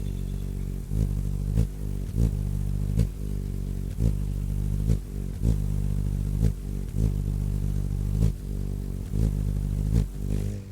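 Hummingbird wings humming: a steady low buzz with short louder swells every half second to a second, stopping abruptly near the end.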